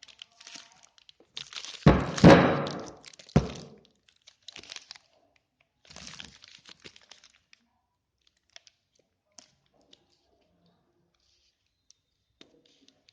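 A coil of 3x2.5 electrical cable and its plastic wrapping being handled. About two seconds in there are two thumps, a second and a half apart, with a rustle and crackle between them, followed by fainter rustles and a few light clicks.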